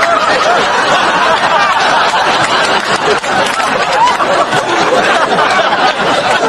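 Indistinct chatter of many people talking over one another, a steady crowd babble with no single voice standing out.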